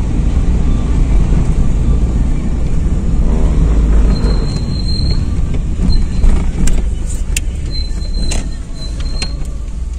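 Car on the move, heard from inside the cabin: a steady low rumble of engine and road noise. A few sharp clicks come about two-thirds of the way through, and a faint thin high tone sounds twice.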